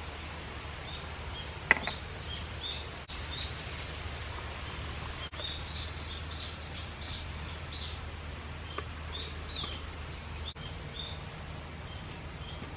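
Small birds chirping in many short, high calls, busiest in the middle, over a steady low hum. A single sharp click about two seconds in is the loudest sound.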